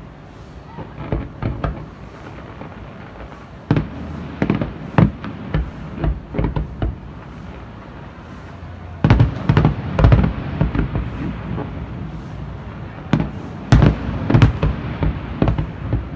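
Aerial fireworks shells bursting in clusters of sharp bangs, volley after volley with short lulls between; the loudest volleys come about nine seconds in and again a few seconds before the end.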